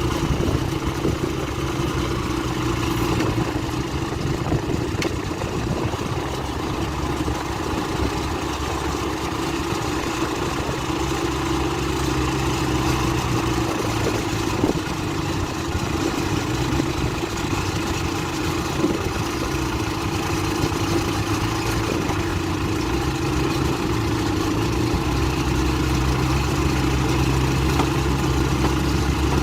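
Bulldozer's diesel engine running steadily at a fairly even speed, with a couple of sharp knocks about halfway through.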